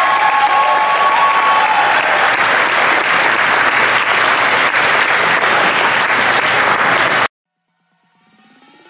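Audience applauding steadily, the clapping cutting off abruptly about seven seconds in.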